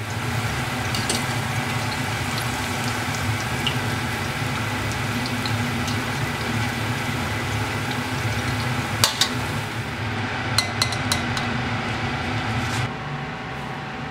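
Scallion, ginger and onion frying in peanut oil in a cast-iron pot, sizzling steadily. Around the middle there are a few sharp metallic clicks as a metal strainer knocks against the pot. The sizzle stops shortly before the end.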